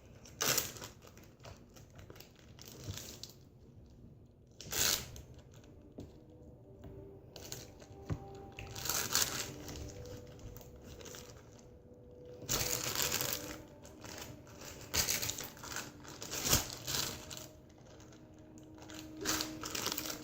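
Plastic slime bags being handled: irregular crinkling and rustling in short bursts, with pauses between.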